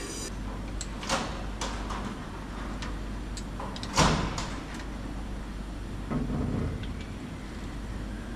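Scattered clicks and knocks of hand work on a semi-trailer's brake wiring and fittings, the loudest about four seconds in, over a steady low hum.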